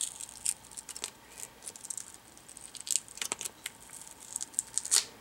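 Adhesive-backed metal strip being peeled off a laptop screen assembly and handled: irregular light clicks and crackles, sharpest about three and five seconds in.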